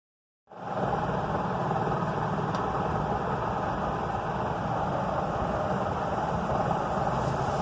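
Honda Unicorn 150's single-cylinder four-stroke engine running steadily after a clutch overhaul, with its clutch bearing replaced, meant to cure a clutch humming noise. The sound starts abruptly about half a second in.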